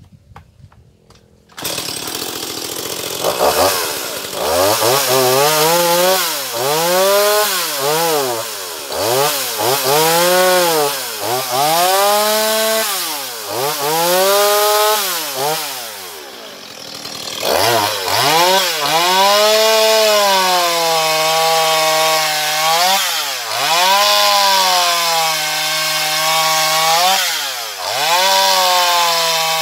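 Stihl MS170 two-stroke chainsaw coming in suddenly about two seconds in, then revving up and down over and over. After a short drop near the middle it is held at high revs for longer stretches while cutting into a wooden log.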